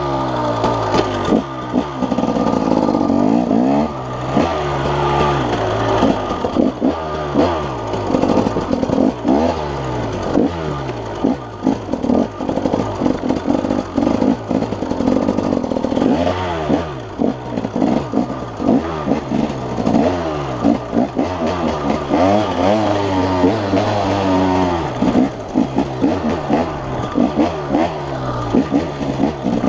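Off-road dirt bike engine revving up and falling back over and over as the rider accelerates and shifts along a rough trail, with frequent rattles and knocks from the bike over bumps.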